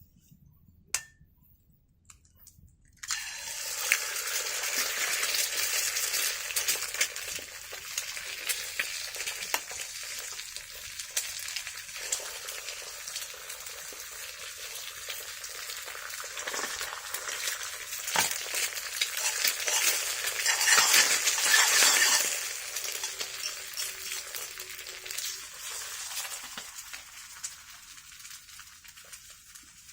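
Two eggs frying in hot oil in a pan. After a single click about a second in, a loud sizzle starts suddenly about three seconds in as the eggs hit the oil. It is loudest shortly before two-thirds of the way through, then dies down toward the end.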